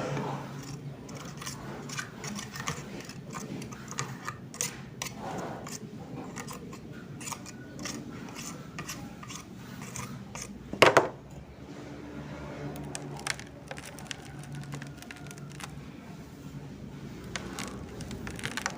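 Hand-work sounds: a run of small scrapes, snips and light metallic clicks as materials are worked by hand, with one louder sharp knock about eleven seconds in.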